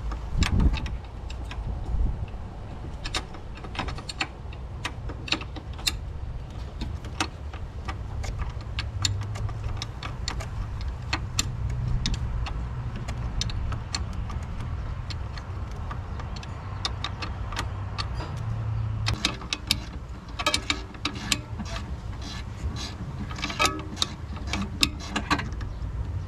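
Wrench and nuts on a brake master cylinder making scattered sharp metal clicks and clinks. The clicks come faster and ring a little in the last several seconds. A steady low rumble runs under them.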